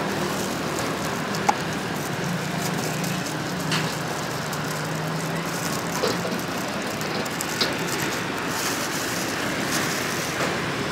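Steady street traffic noise with a low engine hum underneath, and a few faint isolated clicks.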